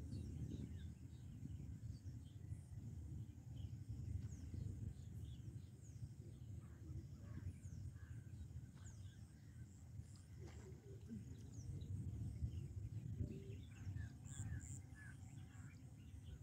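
Low rumble of wind on the microphone, with scattered short bird chirps and calls that come thicker near the end.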